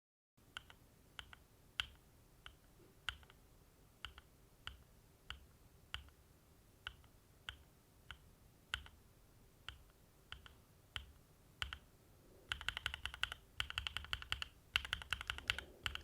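Mechanical keyboard with Equalz x TKC Fruit Smoothie linear switches in a Mode Envoy case without foam, fitted with Mode Tomorrow keycaps. Keys are struck one at a time, a little under two a second, then typed quickly in fast runs near the end.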